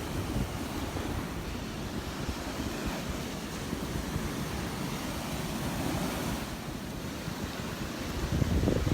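Ocean surf washing onto the beach in a steady wash of waves, with some wind buffeting the microphone.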